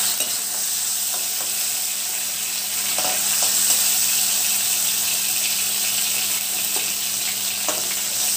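Prawns sizzling in hot mustard oil in a kadai, a steady frying hiss, with a few light clicks of a metal spoon against the pan as the prawns are lifted out.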